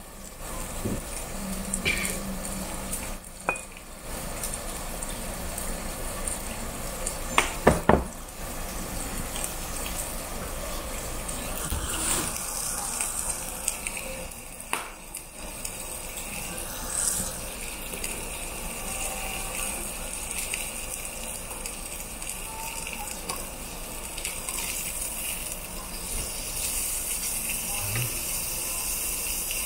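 Thick slab of pork belly sizzling steadily on a charcoal-heated barbecue grill plate as its fat renders. A few sharp clicks come about eight seconds in.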